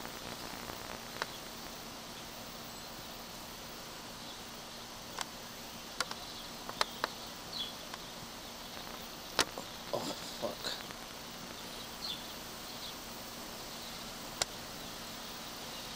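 Outdoor camcorder recording with a steady background hiss and a faint low hum, broken by several sharp handling clicks and a few short, high chirps.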